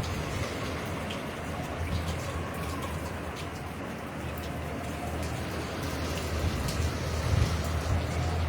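Hurricane rain falling steadily, with gusting wind buffeting the microphone in a low rumble that swells near the end.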